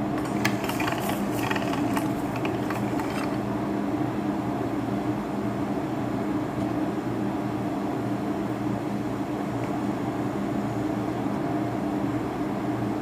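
Steady mechanical hum of a stainless-steel pasta-roller machine running as sambosa dough is fed through its rollers, with light clicks and rustling of the dough in the first three seconds.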